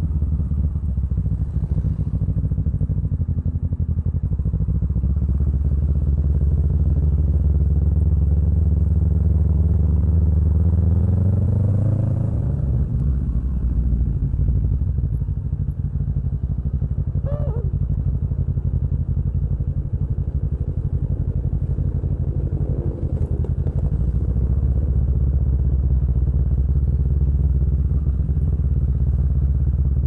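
Kawasaki Ninja 650 parallel-twin engine breathing through an Arrow aftermarket exhaust, running steadily while riding. About twelve seconds in the revs climb, then settle back to an even pull.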